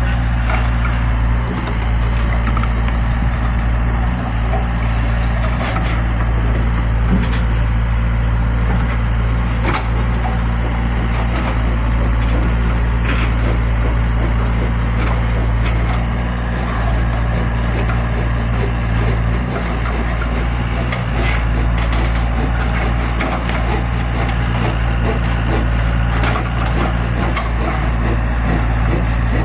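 Zoomlion excavator's diesel engine running steadily under load, with scattered knocks and crackling as the bucket digs and scrapes through earth.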